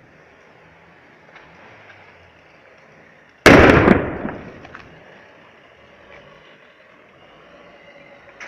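A single loud explosion from a burning methane-fuelled city bus about three and a half seconds in, going off suddenly and dying away over about a second.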